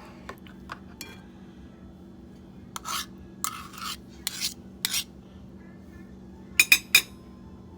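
A spoon scraping and clinking against a bowl while homemade mayonnaise is spooned into a rice salad. There are a few faint taps early, a run of short scrapes a few seconds in, and three quick sharp clinks near the end.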